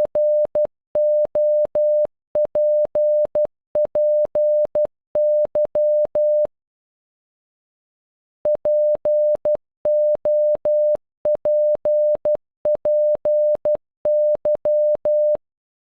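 Computer-generated Morse code tone of about 600 Hz spelling POPPY (.--. --- .--. .--. -.--) in short dots and longer dashes, played through twice with about two seconds of silence between. Each beep starts and stops with a faint click.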